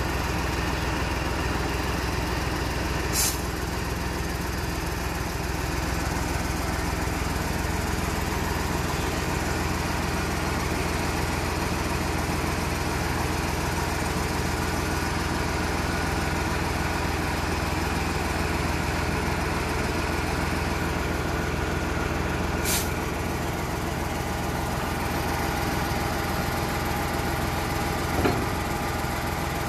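Mercedes-Benz 1622 truck's diesel engine running steadily, driving the Putzmeister concrete pump's hydraulics as the boom folds down. Two brief high hisses come about 3 and 23 seconds in, and a short knock near the end.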